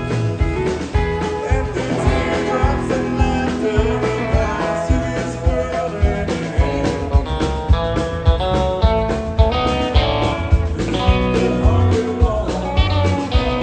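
A live country band playing acoustic guitar, electric bass and a drum kit to a steady beat, with a woman singing.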